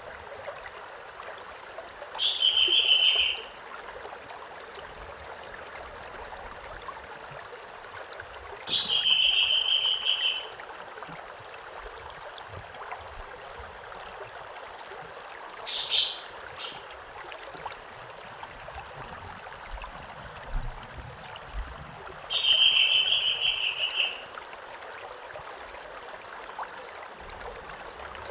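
Steady rush of a river or stream. Over it, a bird repeats a high, even trilled call three times, each about a second and a half long, and gives two short sharp notes midway.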